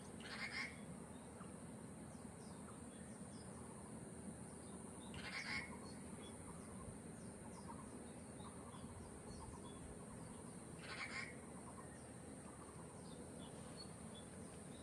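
Quiet outdoor ambience with faint bird calls: a short, rough call repeats three times about five seconds apart, with small scattered chirps between, over a steady high hiss.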